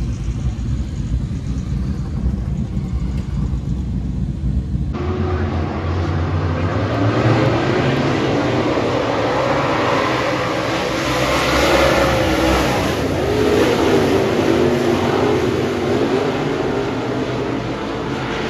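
A low, steady rumble, then from about five seconds in a pack of dirt-track race cars running on the oval, their engines revving up and down with the pitch rising and falling as they pass.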